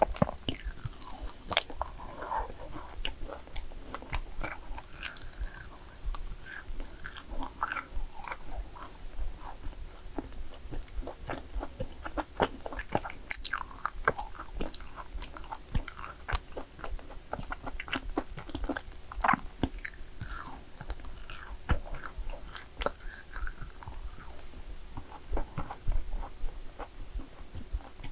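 Close-miked biting and chewing of yakgwa cookies, with many small crisp crunches.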